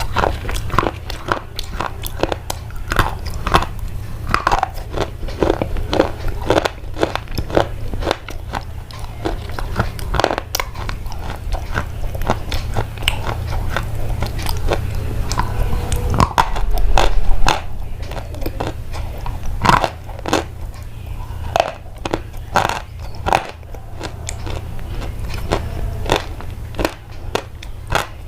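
Crunching and chewing: a steady run of short, sharp crunches and clicks over a constant low hum, with one louder low thump about seventeen seconds in.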